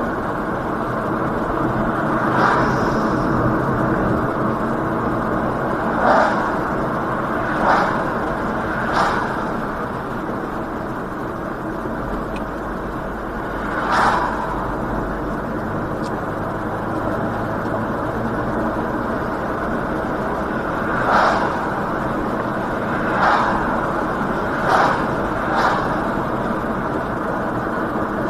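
Steady road and engine noise inside a moving car's cabin. About nine short, louder bursts of noise rise above it at irregular intervals.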